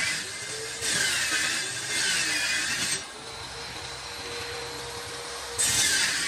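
Table saw cutting a high-gloss laminated board: loud cutting stretches with a sweeping whine about a second in and again near the end. The blade runs freely and more quietly in between.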